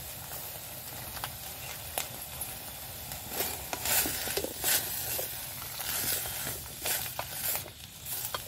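Mushrooms, carrots and green beans sizzling in a frying pan, with a steady hiss and short scrapes and clicks of a spatula being stirred through the pan.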